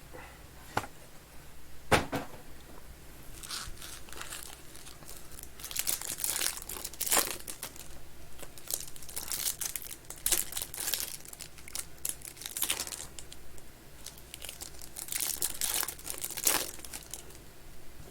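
Plastic wrapping on a hobby box of Panini Select basketball cards being torn open and crinkled in irregular bursts, with one sharp click about two seconds in.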